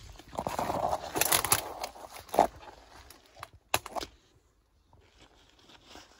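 Footsteps crunching and rustling through dry, overgrown undergrowth and brambles, with a few sharp cracks, falling quiet about four seconds in.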